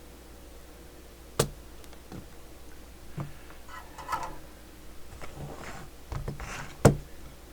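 Spring-loaded desoldering pump fired twice, two sharp snaps about five and a half seconds apart, the second louder, as solder is sucked from a circuit board's joints. Light handling and scraping noises fall between the snaps.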